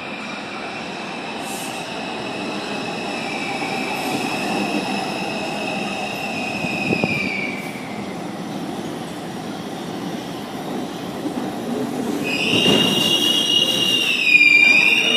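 R142 subway train's wheels squealing in the station as the train pulls in. High steady squeals fade about eight seconds in, then a louder squeal starts near the end and dips in pitch, over the rising rumble of the train.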